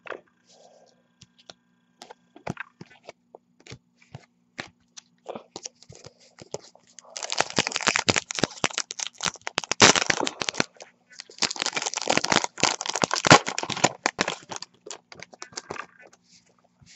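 An Upper Deck hockey card pack wrapper being torn open and crinkled. Scattered small crackles come first, then two spells of dense crinkling in the second half.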